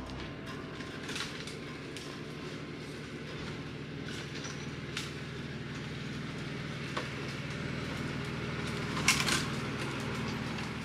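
Jeep engine running low and steady as the Jeep crawls along a forest trail. A few sharp knocks come through, with a louder clatter of knocks about nine seconds in, as it goes over the rough ground.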